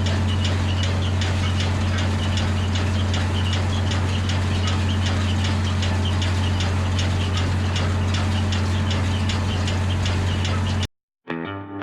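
Massey Ferguson 3505 tractor engine running steadily, with a regular light clicking about three times a second over the drone. It cuts off abruptly near the end, and guitar music begins.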